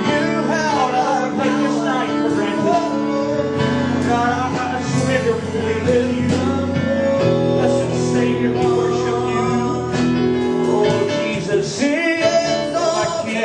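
Live church worship music: a band with guitar plays held chords while voices sing.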